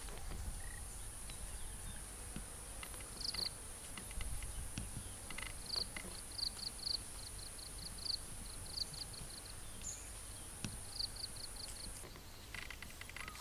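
Rural outdoor ambience: insects droning in a steady high whine, with runs of short, quickly repeated high chirps over a low rumble. The whine cuts off suddenly near the end.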